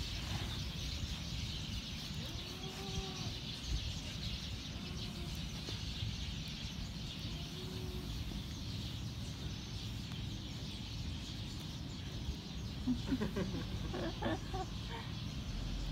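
Birds calling outdoors: a few short arching calls, then a quick run of calls near the end, over a steady low rumble.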